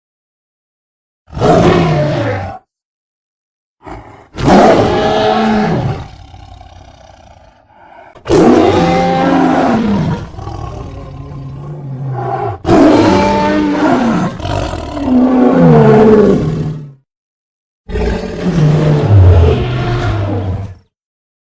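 A string of five creature roar sound effects, each a loud roar that bends in pitch. The first is short. The second trails off into a fading rumble. The last three are long and come in close succession, with dead-silent cuts between some of them.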